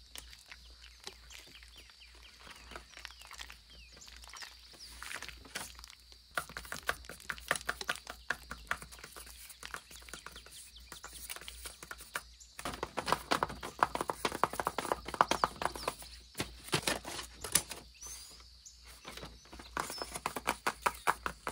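Paper crafting sounds: sticker sheets handled and rustled at first, then rapid runs of tapping and scratching from paper claw fingertips on the paper pages. The taps come in dense runs of quick clicks and are loudest a little past the middle.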